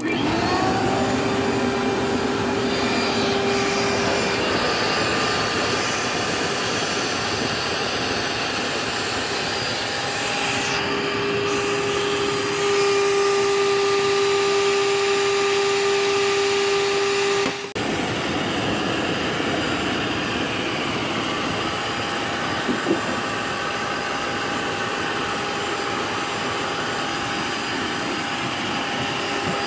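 An electric air blower switches on and runs with a steady whine, forcing air through a pipe into a homemade cast-iron pot forge and fanning the fire. Its pitch rises briefly as it spins up, and the sound cuts out for a moment a little over halfway through.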